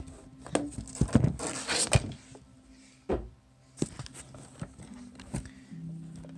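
A knife cutting on a wooden board, then the camera being handled: several scattered knocks and a brief rustle about a second and a half in, over faint background music.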